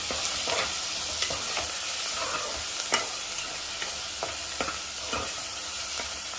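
Chopped onions and green chillies sizzling in hot oil in a pan, with a spoon stirring and knocking against the pan now and then.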